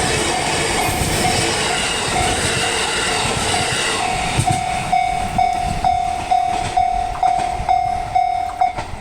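E531-series electric train running past a level crossing, its wheels rushing and clicking on the rails, while the crossing's warning bell rings about twice a second. As the train clears, about four seconds in, the rushing fades, the bell stands out alone and then stops shortly before the end.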